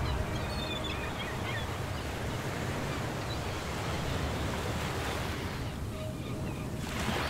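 Steady wash of ocean surf, swelling briefly near the end, with a few faint high chirps in the first couple of seconds.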